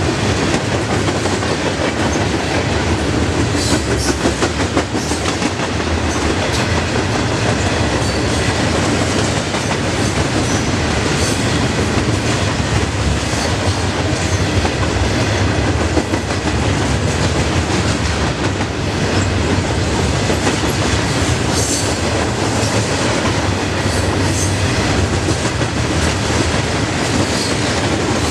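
Freight train of loaded steel coil cars rolling past close by: a steady rumble of steel wheels with a continuous clickety-clack over the rail joints.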